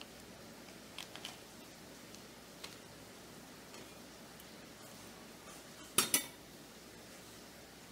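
A steel table knife scraping soft fat off a paper wrapper with a few faint clicks, then two sharp clinks in quick succession about six seconds in as the knife strikes the rim of a stainless steel mixing bowl.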